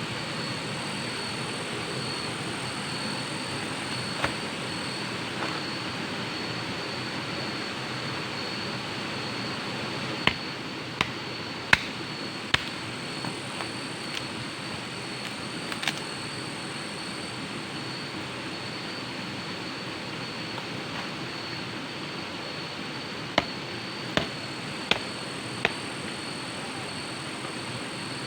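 Waterfall water rushing and splashing in a steady, unbroken roar. A thin, steady high-pitched tone runs over it, and short sharp clicks come now and then, in a cluster about ten to sixteen seconds in and again near the end.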